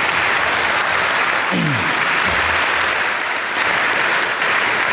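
Audience applauding steadily, with one short falling vocal sound from the crowd about a second and a half in.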